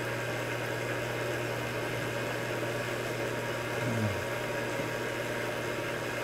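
Steady low machine hum, such as the cooling fan of an ultrasound scanner or the room's ventilation. About four seconds in there is one short low sound that falls in pitch.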